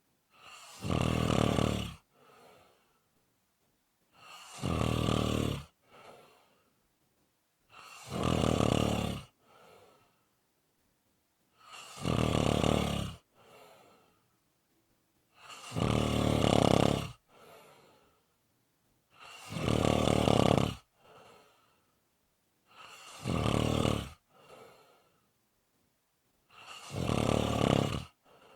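A person snoring in a steady rhythm: eight loud, buzzing snores about every three and a half to four seconds. Each snore is followed by a fainter, shorter breath.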